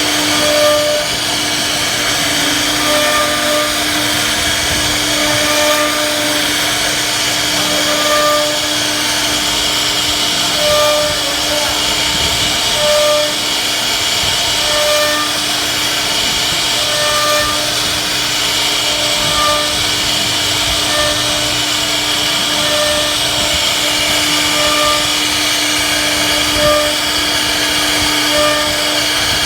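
CNC wood router running steadily as it carves a 2D design into a wooden headboard panel: a continuous hum under a noisy whir, with short higher tones recurring every second or two.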